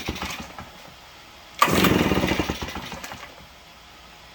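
RedMax leaf blower's two-stroke engine being pull-started on a shot of fuel poured into the carburetor. The tail of one attempt dies away at the start, then about one and a half seconds in the engine fires again, sputters briefly and fades out without keeping running.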